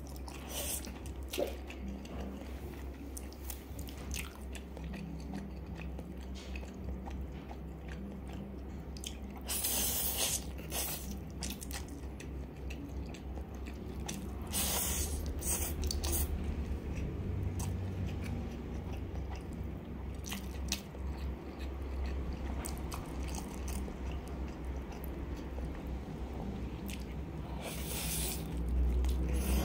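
Close-miked eating of instant noodles in black bean sauce: chewing, wet mouth clicks and a few louder slurps of the noodle strands. Near the end comes a bite of fried egg.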